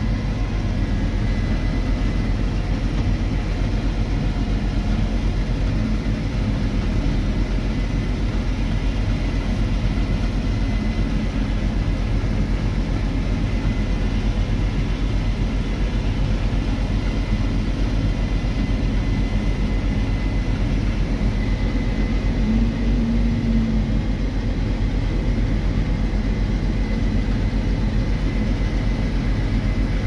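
Steady drone of a tractor pulling a grain cart and a Case IH Axial-Flow combine harvesting alongside, heard from inside the tractor cab, with a thin steady whine over the low rumble. The low note swells briefly about three-quarters of the way through.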